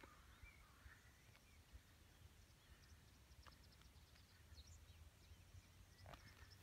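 Near silence: faint open-field ambience with a few faint, high chirps and ticks.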